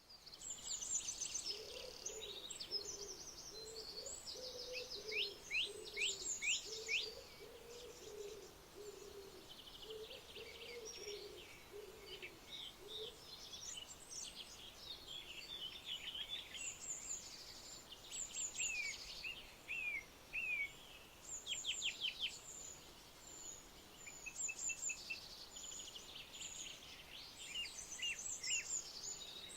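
Several wild birds chirping and singing in quick high notes and short falling sweeps, with a lower call repeated over and over through the first half.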